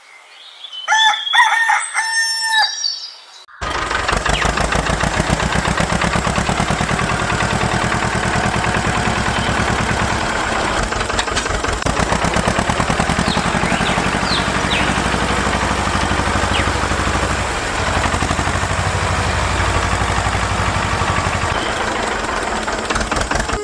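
A rooster crows. About three and a half seconds in, a tractor engine starts up suddenly and runs with a steady, rapid chug, and a few faint bird chirps come through it.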